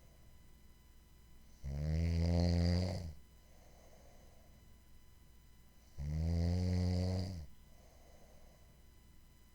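A sleeper snoring at a steady rhythm: two loud, low, rattling snores on the in-breath, each about a second and a half long, each followed by a soft breath out.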